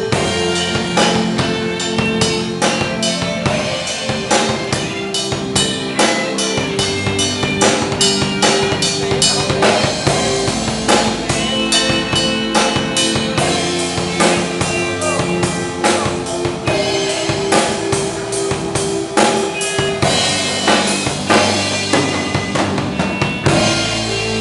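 Live instrumental band: a drum kit playing busy kick, snare and rim hits over held bass, keyboard and electric guitar notes. The drums stop about a second before the end, leaving a sustained chord ringing.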